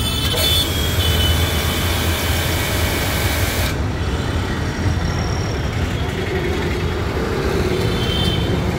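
3-horsepower pressure washer running with the yellow nozzle on: a steady low hum of the motor and pump under the hiss of the water jet. The high hiss drops away sharply about four seconds in while the machine keeps running.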